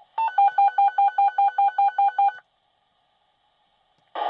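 Dispatch radio sending a rapid string of about a dozen identical electronic beeps over two seconds: the tone signalling that goes with a fire department dispatch call. Near the end the radio keys up with a loud burst of static.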